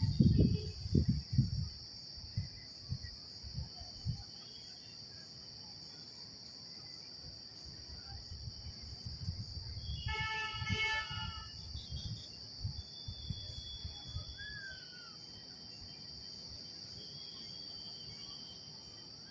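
Steady high-pitched drone of insects, crickets or cicadas, in outdoor ambience. Loud low thumps of wind or handling on the phone's microphone in the first second and a half, and a brief pitched, horn-like tone about ten seconds in.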